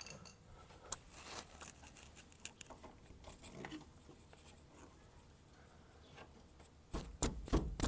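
Flathead screwdriver scraping and clicking faintly as it pries at a factory jounce bumper pressed into its socket above a pickup's rear axle, then a quick run of louder sharp knocks near the end.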